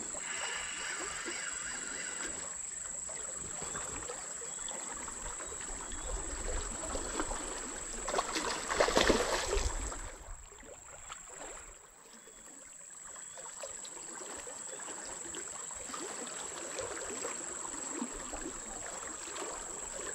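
Fast-flowing river water rushing steadily, with a louder burst of noise from about eight to ten seconds in, then a short quieter stretch. A steady high-pitched whine runs underneath.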